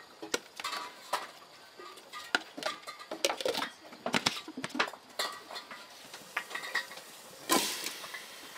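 Irregular clinks and knocks of dishes and utensils, some ringing briefly, with one louder scraping noise about seven and a half seconds in.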